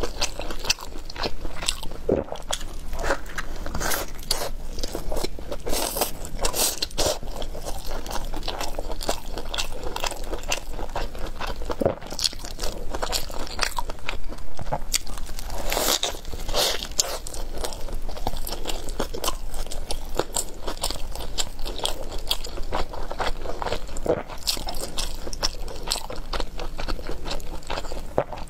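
Close-miked biting and chewing of a filled shou zhua bing (crispy Chinese hand-grabbed pancake wrap), with a run of crisp crunches and a few louder bites.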